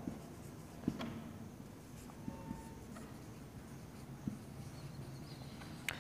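Faint whiteboard marker writing on a whiteboard, with a few light taps and clicks of the marker tip against the board.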